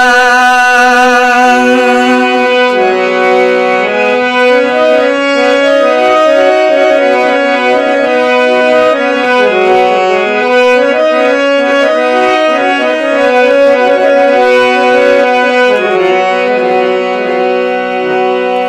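Instrumental interlude between sung verses of a Gojri bait: a keyboard instrument plays a melody of held notes stepping up and down over a steady sustained low note, with no singing.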